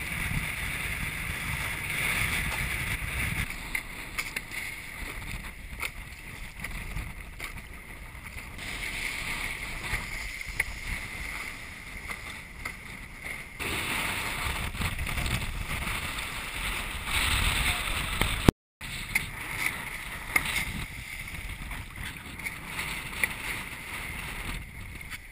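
Wind buffeting the microphone of an action camera on a planing windsurf board, over rushing water and the hull slapping through the chop, with scattered sharp splashes.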